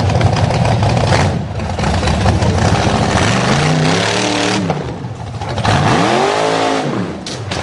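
Off-road 4x4's engine revving hard over a loud rushing noise. The revs climb about three seconds in, then rise and fall once more near the end.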